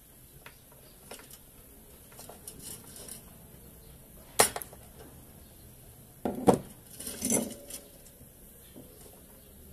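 Hand tool and parts clinking and knocking against a sheet-metal control box while its circuit board is worked on: a few faint clicks, one sharp clink about four seconds in, then a cluster of knocks and ringing clinks a couple of seconds later.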